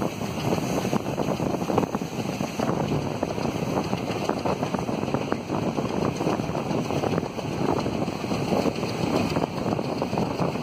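Passenger train coach running at speed: a steady rumble with constant irregular clatter of wheels over the rails, with wind on the microphone.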